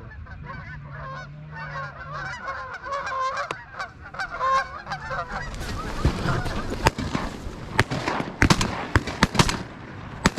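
A flock of geese honking, many calls overlapping. About six seconds in, a rapid volley of shotgun fire from several guns breaks out, close to ten shots in about four seconds.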